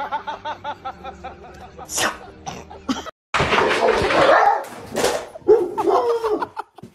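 A dog vocalising along with a person laughing in quick bursts, then a stretch of loud rustling noise and more pitched dog sounds.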